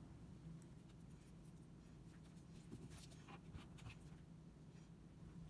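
Near silence: a faint steady low hum, with a few soft ticks and rustles as copper tape and paper are handled, the ticks clustered a little past the middle.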